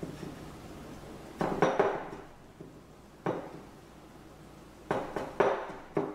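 Hands working raw chicken cutlets into breadcrumbs in a glass baking dish, with groups of knocks and clinks against the glass: a few about a second and a half in, one a little after three seconds, and several more near the end.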